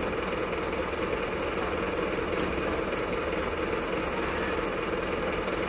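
Truck engine running steadily at an even, unchanging pitch.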